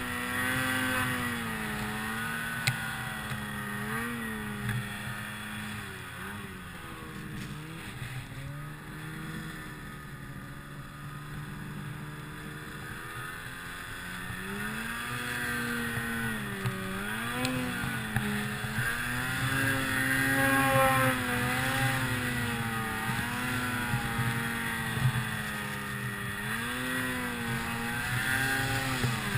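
Tuned 2008 Ski-Doo Summit 163's 800 cc two-stroke engine running through deep powder, its pitch rising and falling constantly with the throttle. It eases off and runs lower and quieter about a third of the way in, then revs up louder again in the second half.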